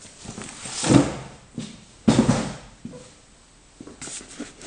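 A cardboard box being handled on a wooden workbench: a rustle about a second in, then a sudden dull knock just after two seconds, and a few light taps near the end.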